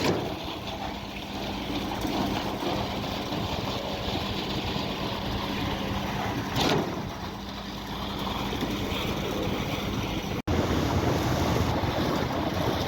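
Cifa concrete pump truck running steadily with a constant hum. There is a brief louder swell about six and a half seconds in. The sound cuts out abruptly near the end and resumes rougher.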